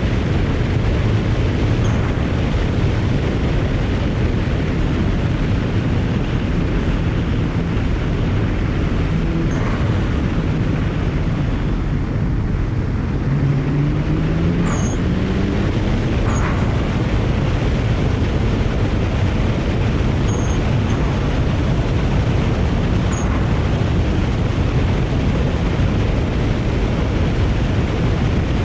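BMW 335i's twin-turbo N54 inline-six, tuned and fitted with aftermarket downpipes, running under load on the road, its pitch climbing in a pull near the middle. The HKS blow-off valve gives short sharp releases several times as boost is vented between throttle applications, over steady road and wind noise.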